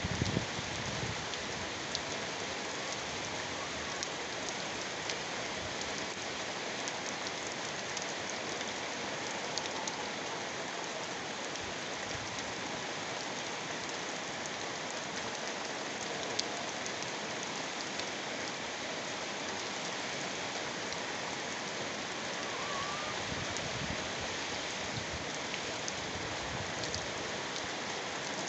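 Heavy rain falling steadily, with scattered sharp drop ticks over an even hiss.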